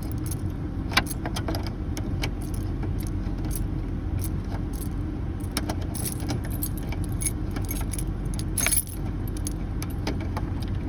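A 2005 Chevy Trailblazer's engine idling steadily, with small metallic clicks and light rattles from screws and tools being handled at the dash. A louder clatter comes near the end.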